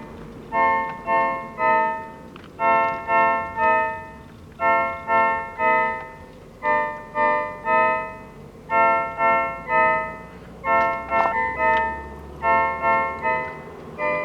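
Keyboard played live, the same chord struck three times in quick succession about every two seconds in a steady repeating pattern, each chord dying away quickly.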